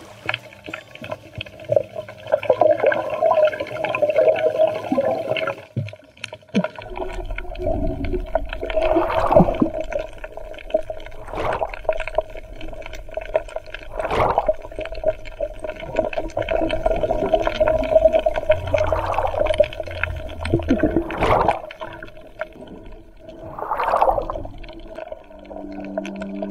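Muffled underwater sound picked up by a camera in the water: a watery wash with a steady hum and a low rumble, broken by several short gurgling surges. Music comes in near the end.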